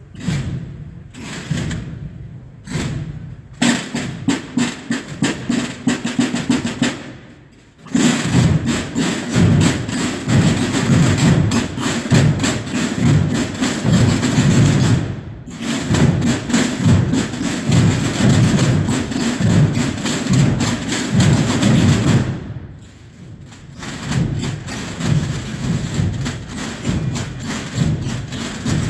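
A group of drums and bass drums beating a rapid, driving rhythm, the sound of a Holy Week drum corps. The playing breaks off briefly about a quarter of the way in, again near the middle, and again about three quarters of the way in, each time starting up again.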